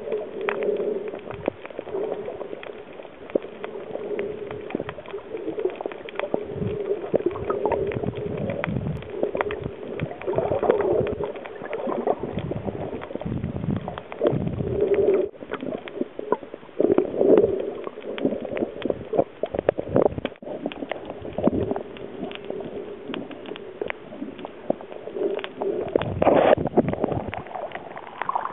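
Water sloshing and gurgling, with many short knocks and clicks scattered through it over a steady low hum.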